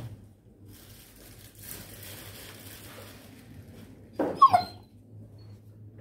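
Labrador retriever giving one short, high whimper, rising and falling in pitch, a little over four seconds in. Faint rustling comes before it.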